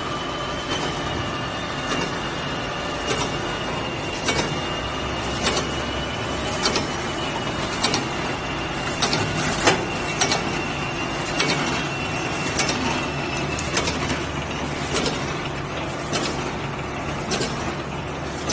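XY GU 388 automatic facial-tissue cube-box packing machine running: a steady mechanical clatter with a sharp clack a little more than once a second as it cycles, and a thin high whine that fades out about three-quarters of the way through.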